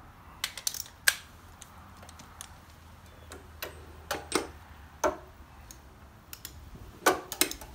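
Irregular sharp metallic clicks and knocks, a few at a time, from hand tools being handled at a motorcycle's rear axle nut. The loudest comes about a second in.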